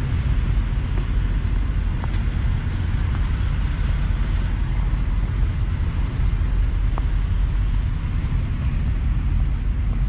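Steady low rumble of idling semi-truck diesel engines across a truck-stop lot, with a few faint crunches of footsteps in snow.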